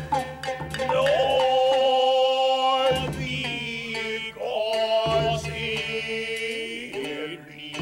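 Gidayū jōruri chanter singing long, drawn-out held notes with a wavering pitch, breaking off briefly about three and five seconds in.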